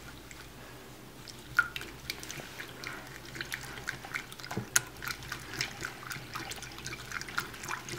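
Wire whisk stirring raw beaten eggs with chopped onion, capsicum and tomato in a glass bowl: wet sloshing with quick, irregular light clicks, starting about a second and a half in.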